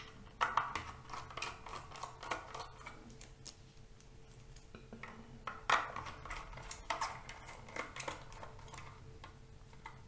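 Irregular small clicks, taps and scrapes of hard plastic and metal as the connector adapter is worked off a laptop's optical DVD drive by hand. A few sharper clicks stand out about half a second in and again between six and eight seconds in.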